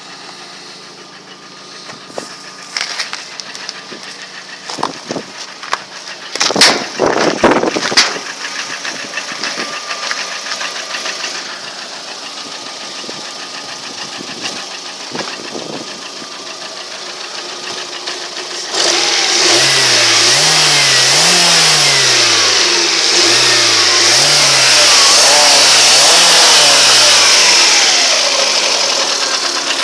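Lada Priora four-cylinder petrol engine running, with a knock the owner cannot explain. Several loud, sharp knocks come between about 6 and 8 seconds in. From about 19 seconds in the engine is revved up and down about five times, getting louder.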